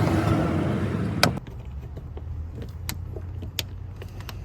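A screwdriver pressing and scraping against a plastic trim cover on a car's inside door panel, ending in one sharp plastic click about a second in, followed by a few light clicks.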